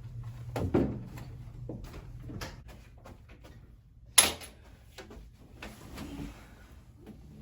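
A door being handled: scattered knocks and rattles, with a sharp click about four seconds in, the loudest sound.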